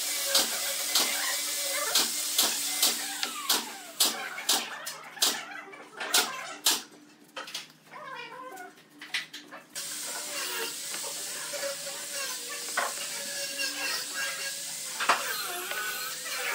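Pine wedge pieces being set down and pressed into place on a glued wooden tabletop: a run of sharp wooden knocks and taps, about two a second at first, then sparser taps over a steady faint hiss.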